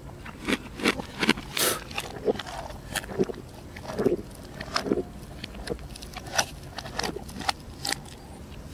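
A person gulping down a drink, a quick irregular string of gulps and wet swallowing clicks.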